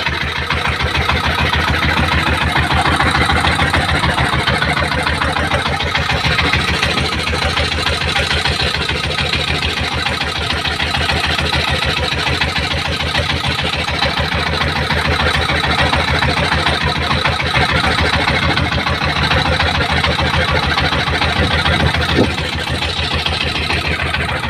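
Small boat engine running steadily at an even speed, its firing a fast regular pulse. One brief knock comes near the end.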